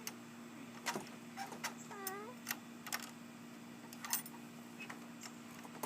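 Faint, scattered metallic clicks and taps from a gate latch being worked at by a Cavalier King Charles Spaniel, without it opening. A short whine from the dog about two seconds in.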